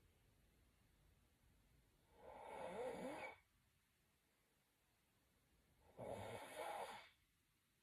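Snoring: two snores about four seconds apart, each lasting about a second, the first with a wavering pitch.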